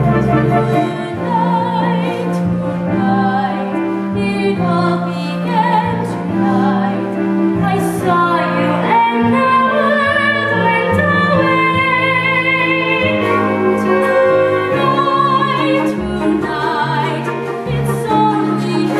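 A young woman and a young man singing a romantic stage-musical duet, with vibrato on held notes, over instrumental accompaniment.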